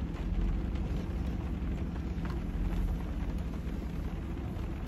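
Rain falling on a car's roof and windows, heard from inside the cabin: a steady hiss with a few faint drop ticks over a low rumble.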